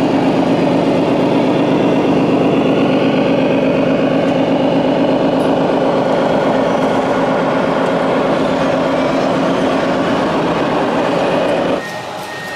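Electronic engine-sound module of a radio-controlled model truck playing a deep, steady truck-engine drone through its small speaker. The drone cuts off abruptly near the end, leaving a quieter background.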